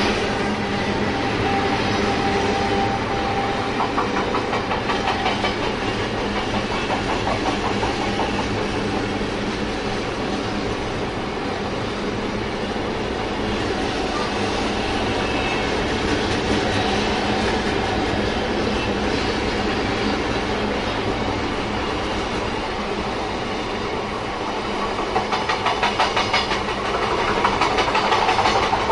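SNCF BB 75100-series diesel locomotive running in the first seconds, then a container freight train's wagons rolling past: a steady rumble of wheels on rail with the clickety-clack of wheels over rail joints, which grows louder and more rhythmic near the end.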